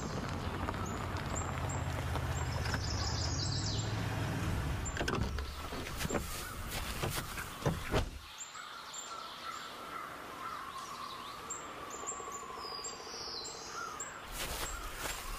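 Cartoon forest ambience: birds chirping over a low rumble that fades out about five seconds in, with a few sharp clicks between about six and eight seconds in.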